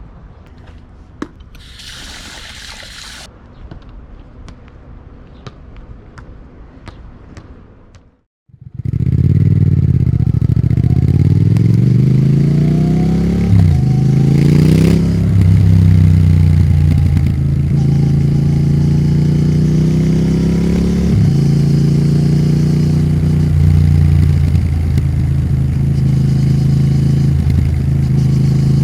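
For the first eight seconds, a quieter background with faint ticks and a short hiss. Then, after a brief dropout, the exhaust of a Triumph Thruxton RS 1200 cc parallel twin comes in loud and close. Its revs sweep down and up, with sudden steps at the gear changes, and then it runs at a steady pitch.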